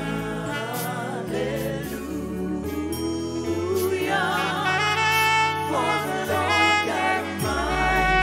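Live gospel worship music: a saxophone playing a melody with long, wavering held notes, alongside singers' voices over a band's bass line.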